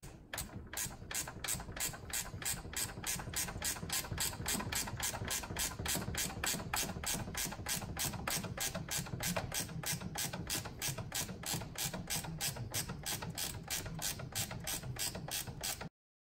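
Hand ratchet wrench clicking steadily, about four clicks a second, as bolts are worked at the top of the radiator and fan shroud; it stops abruptly near the end.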